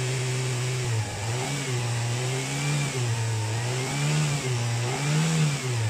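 Car engine running at idle, then blipped on the throttle several times, the revs rising and falling with each press.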